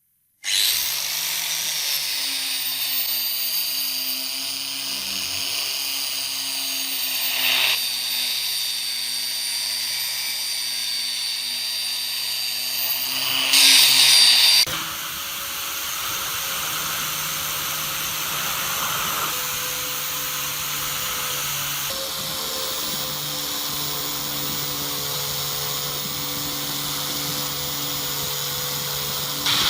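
Small electric power tool running steadily with a motor whine. It gets louder briefly about 13 seconds in, then carries on at a slightly different pitch.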